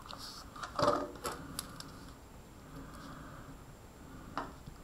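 Marker pen writing on paper: a few short strokes, the loudest about a second in and another near the end.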